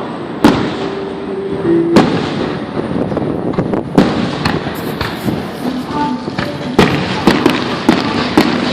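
Fireworks bursting overhead: loud, sharp bangs every one to two seconds, with smaller pops between them, over a continuous noisy background.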